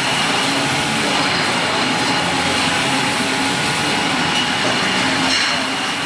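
Beer bottling line running: a loud, steady din of conveyor machinery and green glass bottles rattling together along the conveyor.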